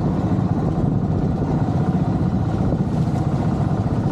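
Engine of a motorized outrigger boat running steadily at cruising speed, with the rush of water along the hull as it cuts through choppy sea.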